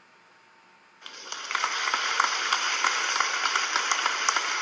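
Applause, starting about a second in as a dense patter of many hand claps and cutting off abruptly, like a canned applause effect.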